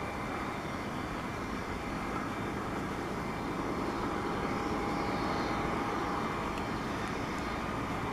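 Airbus A320 jet engines running at taxi power as the airliner taxis: a steady rumble with a thin high engine whine, growing slowly louder.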